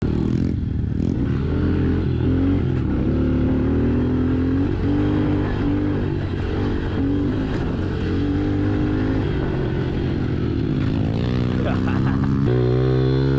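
Small 110cc four-stroke pit bike engine running on the move, its pitch rising and falling gently with the throttle. About twelve seconds in, the sound cuts abruptly to a louder, higher engine note.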